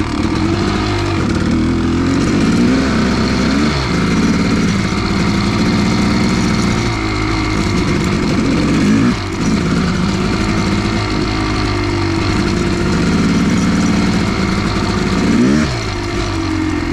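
Kawasaki KX500's single-cylinder two-stroke engine being ridden, its revs rising and falling with the throttle. The revs drop sharply a few times, and the throttle is shut off briefly about nine seconds in.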